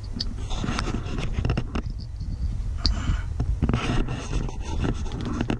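Fingers handling a plastic wire connector and its wires close up: irregular rustling and scraping with a few sharp little plastic clicks, over a steady low rumble.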